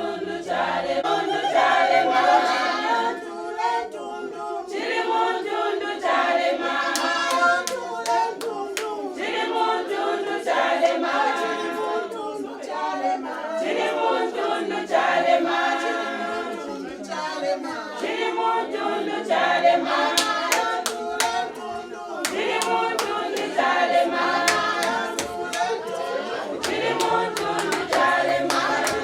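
A group of voices singing together without instruments, with rhythmic hand clapping that comes in a little before the middle and again, more steadily, in the last third.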